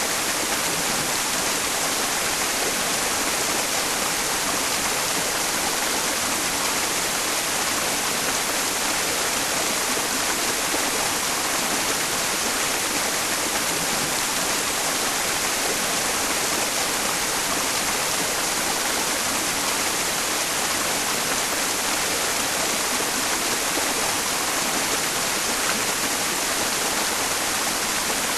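Mountain stream running water blended with steady white noise, an even hiss that stays the same throughout.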